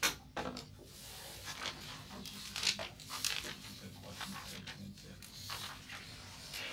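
Paper rustling as textbook pages and loose sheets are turned over, in short irregular rustles, the loudest right at the start and about two and a half seconds in.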